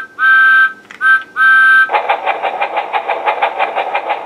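Sound effects from a My First Thomas & Friends Project and Play Thomas toy. A two-note steam-train whistle toots in several blasts over the first two seconds, then a steam engine's fast, even chuffing runs on.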